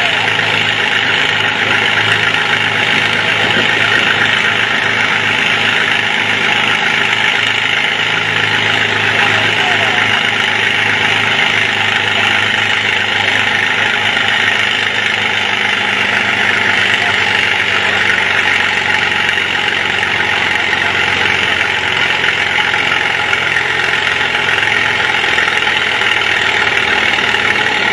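Small Farmall tractor's engine running steadily under heavy load as it drags a weight-transfer pulling sled slowly down the dirt track.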